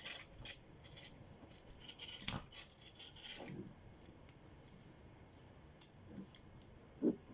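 Small hard parts and tools being handled: scattered light clicks and short scrapes, busiest in the first few seconds, with a sharper knock near the end.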